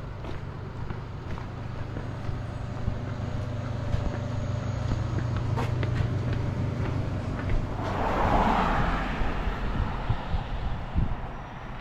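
Road traffic: a motor vehicle's engine hums steadily, and about eight seconds in another vehicle swells past.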